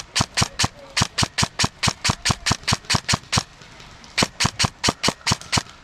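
Airsoft gun firing a steady string of sharp shots, about five a second. The string pauses for under a second about four seconds in, then resumes.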